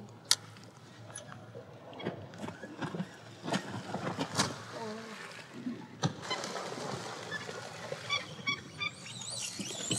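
Faint seabird calls over open water, including a quick run of repeated short calls near the end, with a few sharp knocks scattered through.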